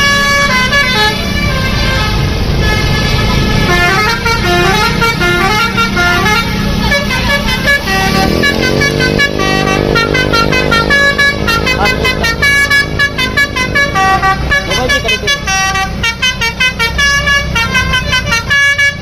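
Basuri telolet bus horns on several buses sounding at once, playing fast stepping melodic tunes over each other, with bus engines rumbling underneath. About eight seconds in a deeper horn slides up in pitch and holds for several seconds.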